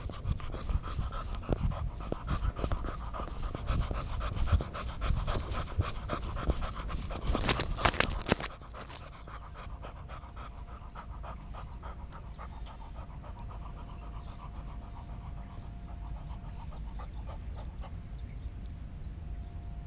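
A dog panting right at the microphone. It is loud for the first eight seconds or so, then drops to a fainter level.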